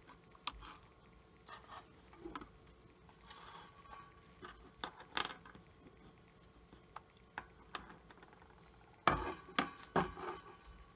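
Light clicks, taps and clatter of aluminium USGI AR-15 magazines, plastic followers and tools being handled and set down on a tabletop, with a few louder knocks about nine seconds in.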